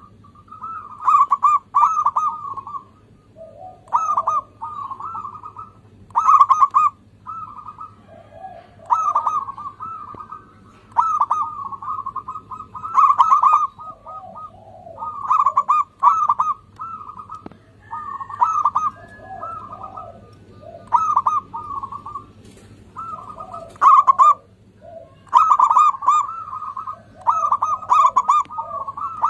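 Zebra dove (perkutut) singing its rapid, staccato cooing song, short phrases repeating every second or two.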